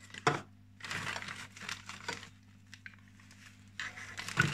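Rustling and crinkling handling noises, with a sharp knock about a quarter second in and a louder patch of rustling near the end. A steady low hum runs underneath.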